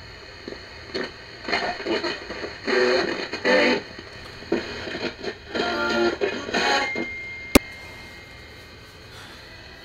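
Portable radio being tuned: short snatches of guitar music come and go over a steady hiss of static. Near the end a thin high whistle holds for a couple of seconds, cut through by one sharp click.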